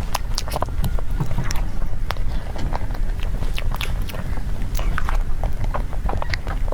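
Close-miked eating of cake: biting and chewing, heard as many irregular small clicks and crackles over a steady low rumble.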